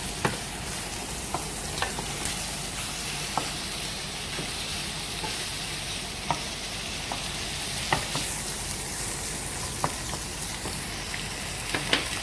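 Flour-dredged chicken thighs sizzling steadily in oil in a very hot sauté pan, with a scattering of short sharp clicks or pops at irregular moments.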